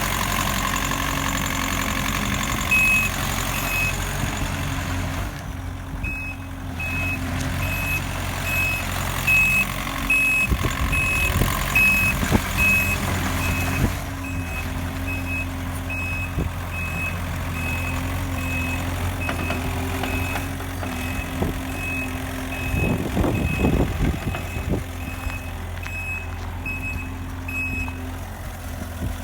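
Gehl CTL55 loader's diesel engine running steadily while its backup alarm beeps, about three beeps every two seconds, as it reverses. The beeping starts a few seconds in, stops briefly, then carries on until near the end.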